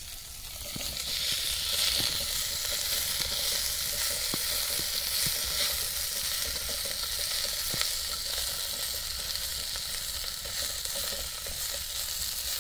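Sausage, onion and potatoes sizzling as they fry in a camping goulash kettle (kotlík), the sizzle swelling about a second in and then holding steady. A few light clicks from stirring sound through it.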